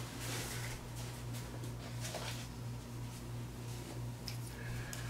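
Quiet room tone with a steady low hum, with faint rustling and a couple of light knocks as someone moves about.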